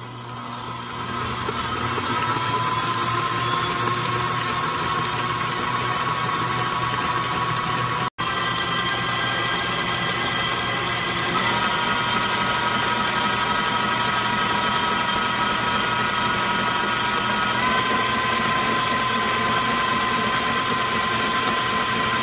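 Electric mixer motor running with a steady whine as its beaters whip eggs into sugar and olive oil until the batter turns pale. The whine rises in pitch over the first couple of seconds as the motor speeds up, then shifts pitch a couple of times, with a very brief break about eight seconds in.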